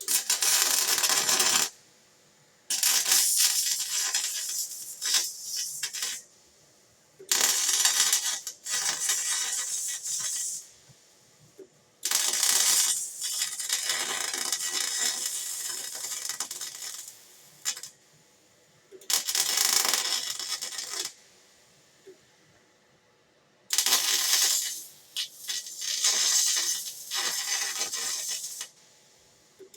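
Arc welding on steel: a crackling sizzle in six bursts of one to five seconds each, starting and stopping sharply as the arc is struck and broken between weld runs.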